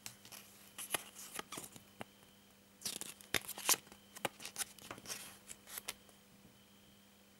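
A folded paper collector's leaflet being unfolded by hand: paper crackling and rustling in a run of short, irregular crinkles that die away shortly before the end.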